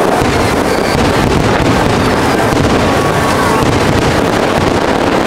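Dense fireworks barrage: many aerial shells bursting in quick succession, their reports running together into one loud, continuous din.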